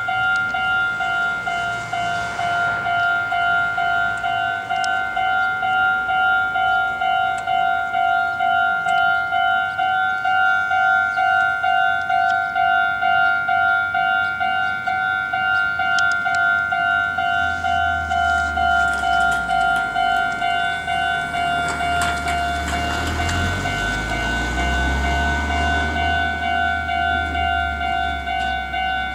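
Japanese level-crossing warning bell ringing steadily, an electronic two-tone ding repeating about twice a second. About two-thirds of the way through, a Meitetsu 3500 series and 3700 series electric train passes at speed without stopping, its low rumble and wheel clatter building, then easing under the bell.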